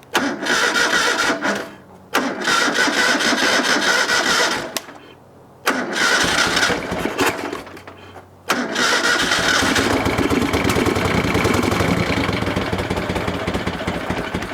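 1973 Moto Guzzi Eldorado V-twin engine cranked three times in short tries, then catching about eight and a half seconds in and running steadily. It has no choke and is slow to start cold.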